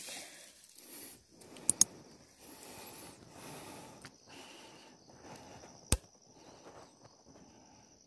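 Quiet rustling and handling noise as an air rifle is aimed through its scope, with sharp clicks: two close together a little under two seconds in and a louder single one near six seconds. A faint steady high-pitched tone starts about a second and a half in.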